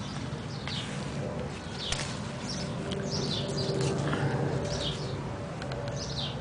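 A bird chirping repeatedly in the background, short high notes sliding downward about once or twice a second, over a steady low hum.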